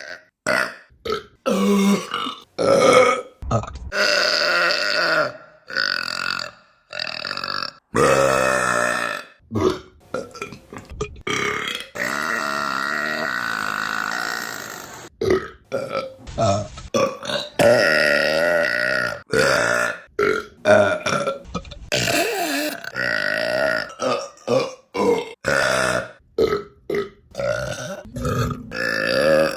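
A quick succession of women's burps, each one cut hard against the next: mostly short pitched belches, with one long drawn-out burp lasting several seconds near the middle.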